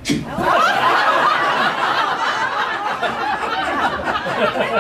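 Audience laughing together, many voices at once, starting suddenly and keeping up throughout.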